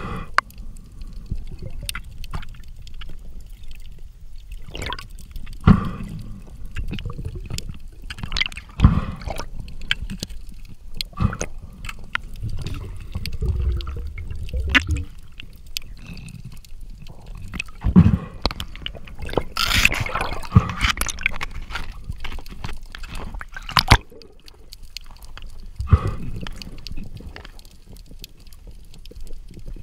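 Underwater sound picked up by a camera in the sea: a low water rumble and gurgling with frequent sharp clicks and knocks, and a longer rush of noise about twenty seconds in.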